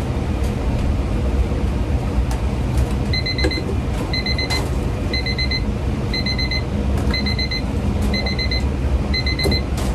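An electronic alarm, like a kitchen timer, beeping in short rapid groups about once a second, starting about three seconds in. Under it runs a steady low rumble of kitchen noise.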